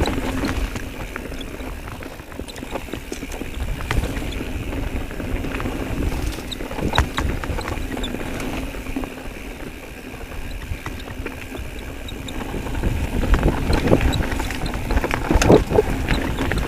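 Mountain bike rolling fast down a dirt singletrack: a steady low rumble of tyres and rattling from the bike, with sharp knocks over bumps, louder and rougher for the last few seconds.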